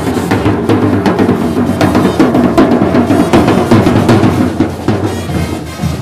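Street band drums playing loudly, a bass drum and snare drum beating together, easing off slightly near the end.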